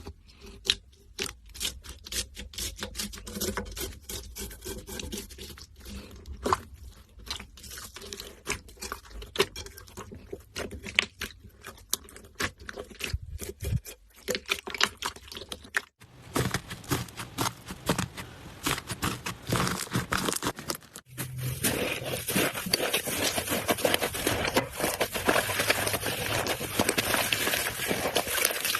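Slime being squeezed and pressed by hand, giving dense, irregular crackling and popping clicks. The texture changes abruptly about halfway through and again a little later, and the last part is denser and louder.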